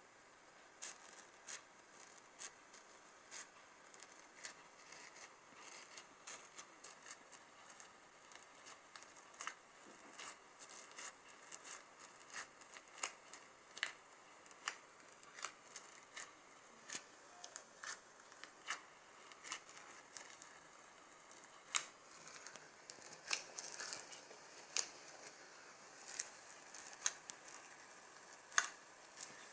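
Bubbly white-glue slime being squished and stretched by hand, its trapped air bubbles popping in sharp, irregular clicks, several a second.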